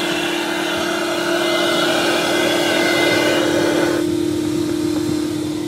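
Ashbys Enforcer 400 PSI carpet extraction machine running with a steady hum and a rush of exhaust air. About four seconds in, the rush turns abruptly duller and quieter as a silencer is pushed onto its rear exhaust.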